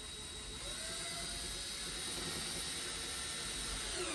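Cordless power drill running steadily with a high whine, driving a license plate screw into the bumper, and stopping abruptly near the end.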